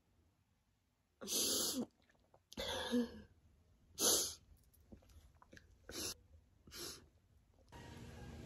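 A woman crying without words: a handful of separate sobbing breaths and sniffles, one with a short catch of voice in it. Near the end a steady low hum comes in.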